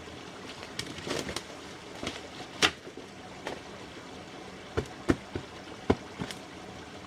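A stream running steadily, with irregular sharp knocks and snaps over it. The loudest snap comes about two and a half seconds in, and a cluster of duller knocks follows from about five to six seconds.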